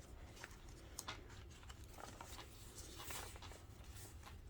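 Faint rustling and light taps of paper pages, tags and card being handled as a handmade junk journal is flipped through, with a sharper tap about a second in and another around three seconds in.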